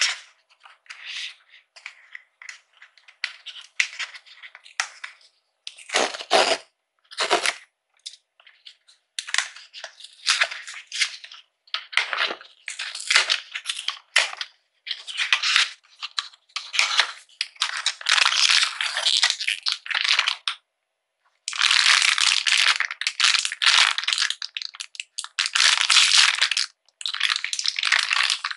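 Cardboard blind box being opened by hand, its flaps and inner card pulled and torn, with two sharper knocks about six and seven seconds in. In the second half a foil blind-box bag is crinkled, torn open and rummaged.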